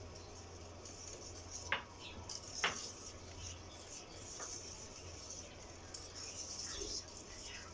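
A spoon stirring thick rice pudding (kheer) in a metal pan, quietly, with two sharp clicks about a second apart early in the stirring. A faint steady low hum runs underneath.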